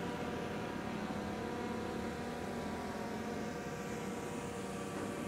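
DJI Air 2S quadcopter lifting off and climbing, its propellers giving a steady whine of several tones that fades slightly as it rises.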